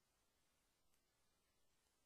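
Near silence: the faint, even hiss of the recording's noise floor.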